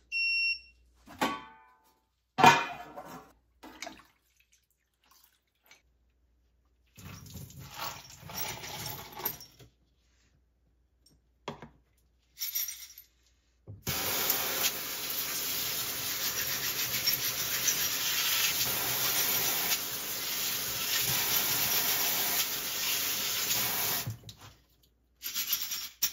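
A sharp knock and some clatter of small parts being handled, then about fourteen seconds in an ultrasonic cleaner runs with a steady, even hiss for about ten seconds before cutting off.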